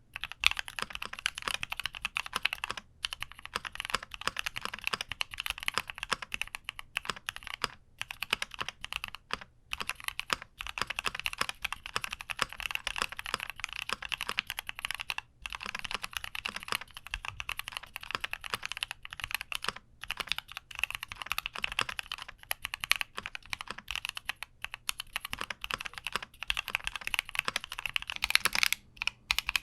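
Fast, continuous typing on a Keychron Q60 mechanical keyboard: a dense run of key clacks with a few brief pauses.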